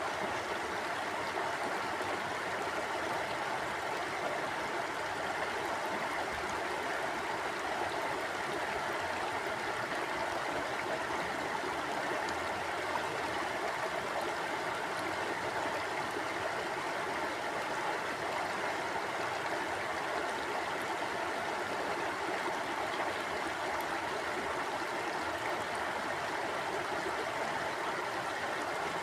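Stream water flowing and gurgling, a steady even rush with no breaks.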